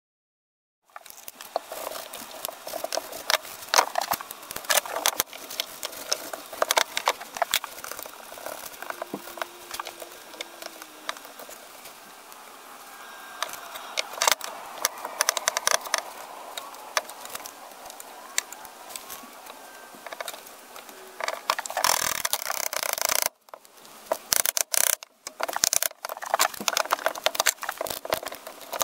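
Workbench handling noises during a knife-handle glue-up: irregular clicks, taps and knocks of the steel cleaver blade, wooden handle scales and an orange screw clamp being picked up, fitted and set down, starting about a second in. About three-quarters of the way through there is a louder stretch of rubbing or scraping.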